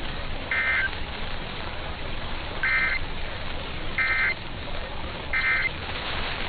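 Emergency Alert System SAME data bursts on NOAA Weather Radio: four short, buzzy two-tone bursts, each about a third of a second long, over steady radio static.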